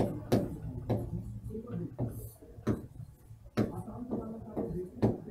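Marker pen writing on a whiteboard: irregular sharp taps of the tip on the board, with short rubbing strokes as each letter is drawn.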